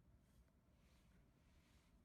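Near silence: faint room tone, with a soft hiss for about a second in the middle.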